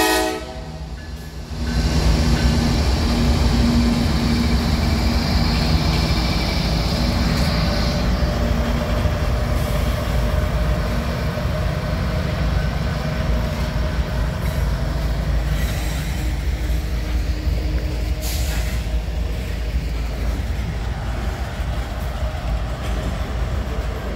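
Slow freight train rolling past close by: the horn's last note cuts off at the very start, then the low hum of the diesel locomotives moving away over the first several seconds and a steady rumble of freight car wheels on the rails. Two sharp clanks come about ten seconds in and again near eighteen seconds.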